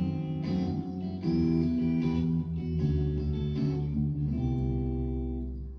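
Guitar-led instrumental passage of a song, with chords strummed and held, changing every second or so and easing off near the end.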